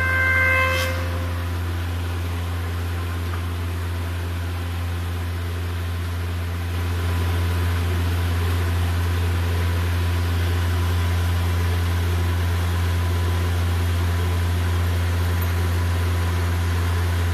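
Four-sided wood planer (moulder) running: a steady low motor hum with an even whir above it, becoming louder and fuller about seven seconds in. A high whine stops within the first second.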